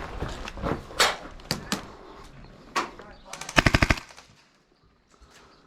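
Airsoft gas blowback MP7 running on HPA air, firing: scattered single shots and knocks, then a short full-auto burst of about eight rapid shots at roughly three and a half seconds in, the loudest sound.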